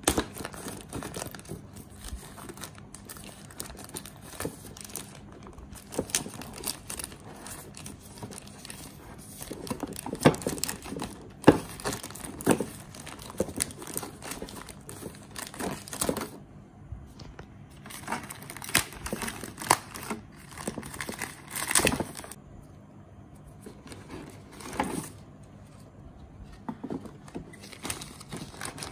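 Clear plastic packaging bags crinkling and rustling as hands pull router parts out of them, in uneven handling noises with a few sharper crackles.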